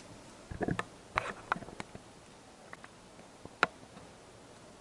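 A few scattered light clicks and taps over quiet room tone, several in the first two seconds and one sharper click about three and a half seconds in.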